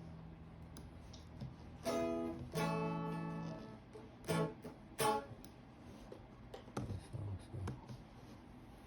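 Guitar played in a few separate strummed chords, each ringing out briefly. Fainter single plucked notes follow in the second half.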